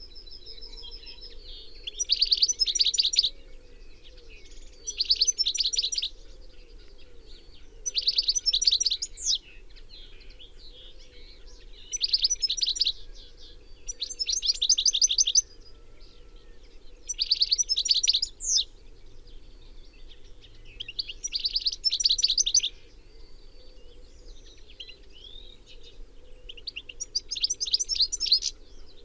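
European goldfinch singing: about eight short phrases of rapid, high trilled notes, each about a second long, with pauses of two to three seconds between them.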